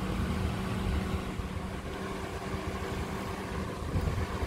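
Suzuki Jimny's engine running at low, steady revs with a steady hum over an uneven low rumble, as the 4x4 crawls slowly off-road.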